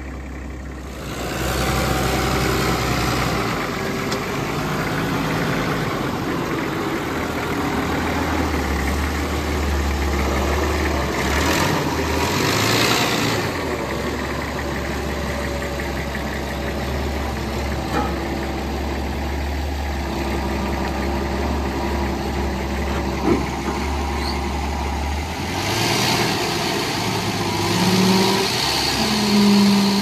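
Old diesel forklift engine running steadily. Near the end its revs rise and fall a few times as it lifts the weight of a low-loader trailer.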